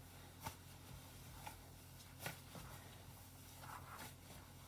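Faint soft rustling and a few light clicks as a gloved hand kneads crumbly besso (roasted barley flour) dough with butter in a bowl, over a steady low hum.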